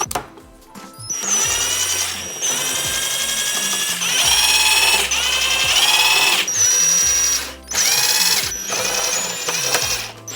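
Cordless power driver backing out screws from the metal case of an NVR, its motor whining in about five runs of one to two seconds, rising in pitch as each run starts.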